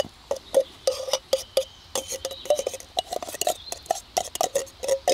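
Wooden stick knocking and scraping beans out of a tin can and against a metal camping pot: a quick, irregular run of clinks and knocks, each with a short metallic ring.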